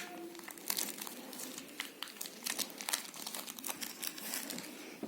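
Packaging being handled and unwrapped during an unboxing, with an irregular run of crinkling crackles.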